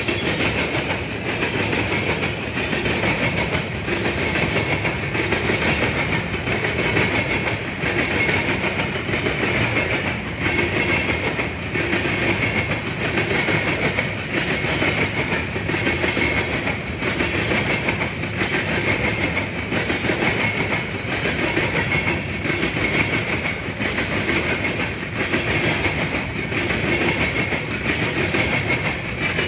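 Freight train of covered hopper cars rolling past, its wheels clicking over the rail joints, with a steady high-pitched tone above the rumble.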